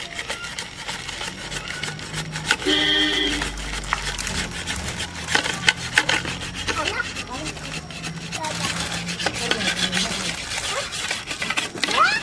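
Steel slotted spoon scraping and tapping on a plate, pushing pounded, ghee-roasted gond (edible gum) into a kadhai of panjiri mixture, in repeated rough scraping strokes. A short pitched sound cuts in about three seconds in.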